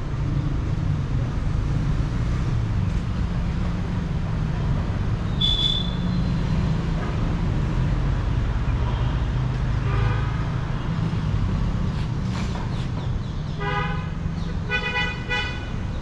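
Steady low rumble of road traffic with vehicle horns honking: one short honk about ten seconds in, then two longer honks near the end. A brief high chirp sounds about five and a half seconds in.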